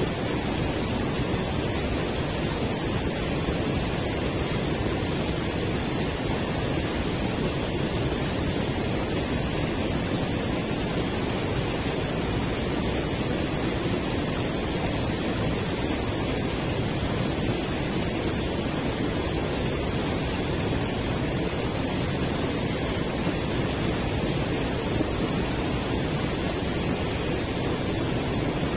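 Steady rushing of river water spilling over a low concrete weir.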